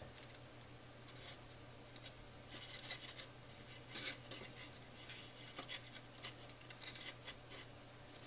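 Faint scratchy rubbing and light ticks of thin copper wire being handled and twisted against a polymer clay piece, in scattered short bursts over a steady low hum.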